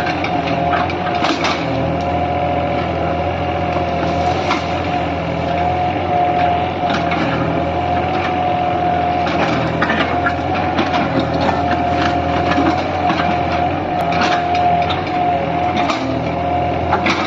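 Heavy engine running steadily with a constant whine, while wood cracks and snaps again and again as a tree is felled.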